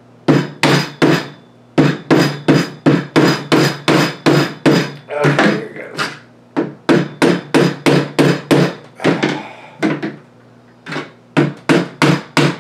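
Mallet tapping a metal pin punch, about three sharp taps a second in three runs with short pauses, driving a tight-fitting peg out of a katana's handle.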